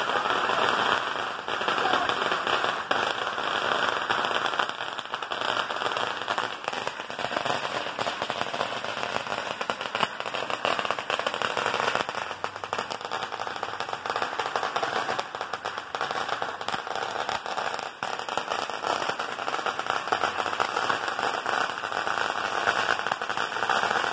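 A long firecracker strip going off: a dense, rapid crackle of small bangs that runs on without a break.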